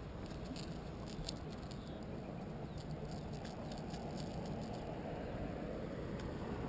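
Light quick ticks and rattles as a small white bass is reeled in and swung aboard on a rod and reel, over a steady low rumble.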